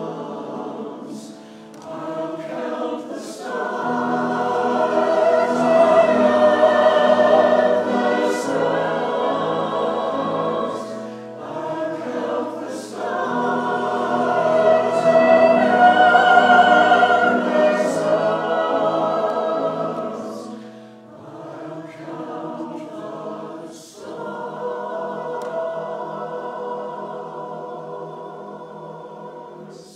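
Church choir singing in long held phrases that swell and fade, breaking off suddenly at the end.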